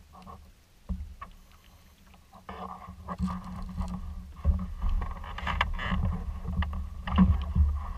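Kayak being paddled: the paddle blades dip and splash, with water dripping and a few sharp knocks. Under them is a low rumble that grows louder about halfway through.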